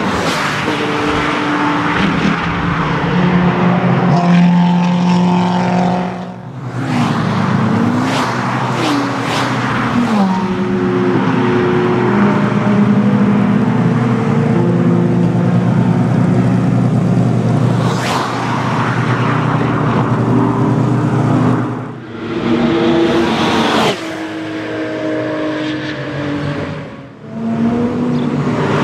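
High-performance track cars passing at speed one after another, their engines revving hard, with the pitch sweeping up and down through gear changes and fly-bys; the sound eases off briefly a few times between cars.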